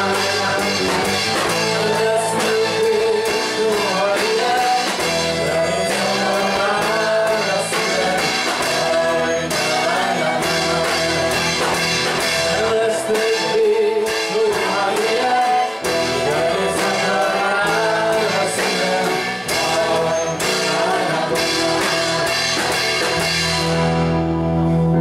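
Live rock band playing a song with sung vocals over acoustic and electric guitars, violin and drums. Near the end the top end falls away, leaving a low held chord.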